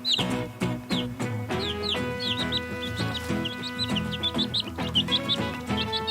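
Many chicks peeping: a dense run of short, high, downward-sliding peeps, several a second, over steady background music.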